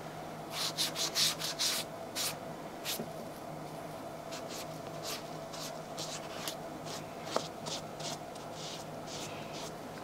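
A small hand-held scrubber rubbed over a hiking shoe's upper during cleaning. The quick scratchy strokes are busiest in the first few seconds and then turn lighter and sparser, with a single click about seven seconds in.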